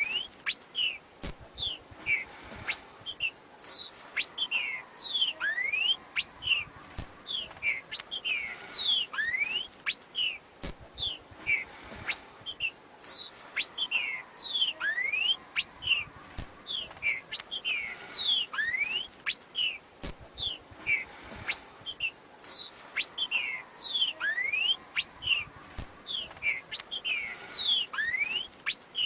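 Female green-winged saltator (trinca-ferro) giving its macheado call: a continuous rapid series of short whistled notes, most sliding steeply down in pitch, mixed with occasional rising slurred notes. A few knocks sound in between.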